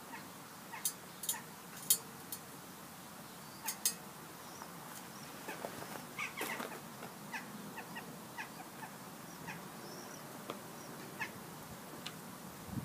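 Fire crackling in the fuel bed around a smoke-fired ceramic sculpture: scattered sharp pops and snaps over a faint steady hiss, with a quicker run of smaller, chirp-like crackles about halfway through.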